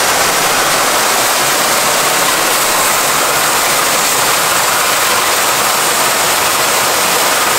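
CNC flame-cutting machine with several oxy-fuel torches cutting through steel plate: a loud, steady rushing hiss from the gas jets.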